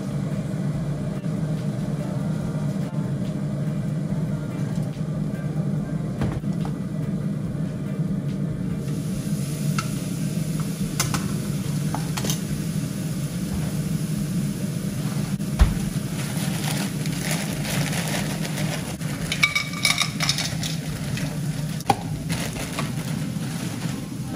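Raw chops frying in a pan: a sizzle sets in about nine seconds in and keeps going, with a few sharp clacks of metal tongs against the pan. A steady low hum runs underneath, and near the end a plastic bag of frozen vegetables rustles as it is opened.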